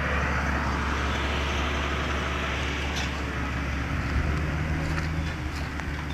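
KAMAZ truck's diesel engine running steadily, a low rumble, with a faint steady hum joining in about four seconds in.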